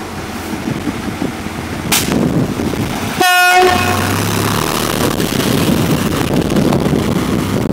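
Fire engine giving one short horn toot as it pulls past, about three seconds in, followed by a brief low engine hum, over heavy wind noise on the microphone.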